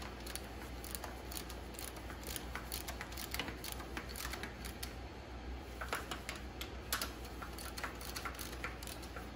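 Socket ratchet clicking in quick runs of small sharp clicks as the new fuel pump's mounting bolts are tightened.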